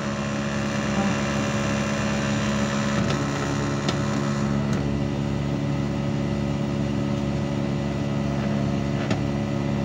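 Outdoor unit of a Panasonic 1.5-ton inverter split air conditioner running with a steady humming, vibrating noise, louder than normal. The technician puts the noise down to compressor vibration and a dirty, clogged outdoor condenser.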